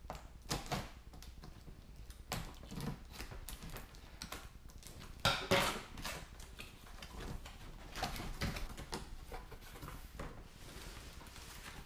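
Cardboard box being opened by hand: scissors cutting its seal, then the lid and a cardboard insert scraping and rustling, with scattered sharper clicks and knocks, the loudest cluster about five and a half seconds in.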